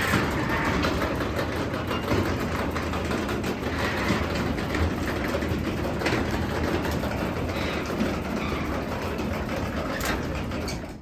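Craftsman DC belt-drive garage door opener raising the door, a steady run with the door rattling and clacking along its tracks. It stops shortly before the end as the door reaches the top.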